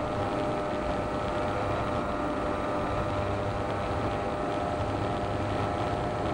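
Electric motor and propeller of a small RC model airplane running steadily in cruise, a whine with several fixed tones over a rush of air noise, heard from on board.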